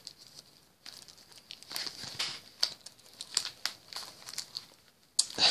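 Card game starter set's packaging being torn open by hand: irregular crinkling and tearing with short pauses.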